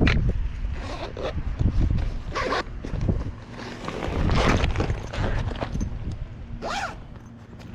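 Fishing tackle being handled: several separate zipper-like scraping pulls, with rustling in between.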